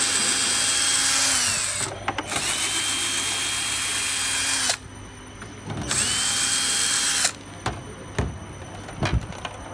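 A cordless power driver unscrewing the casing screws of an electric unicycle in three runs, each one whining up to speed and winding down, the last stopping about seven seconds in. A few sharp clicks and taps follow near the end.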